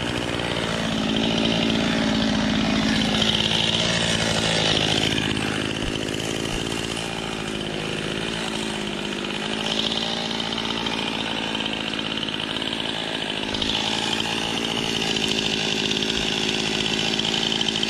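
Stihl chainsaw running, its engine note rising and falling as it is revved up and eased off a few times.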